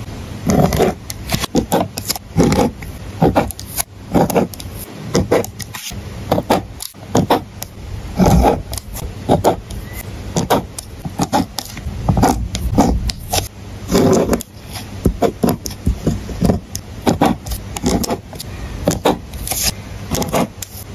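Pen tip scratching across paper in short, irregular strokes, about one or two a second, while answers are ticked and circled on a printed test sheet.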